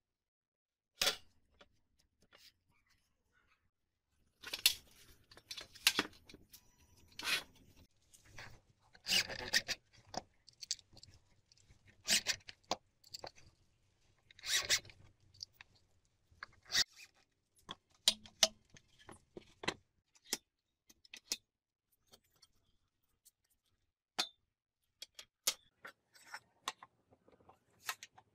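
Handling and assembly sounds from a wooden folding table and its frame: scattered sharp clicks and knocks and short scrapes and rubs, in irregular bursts with quiet gaps between.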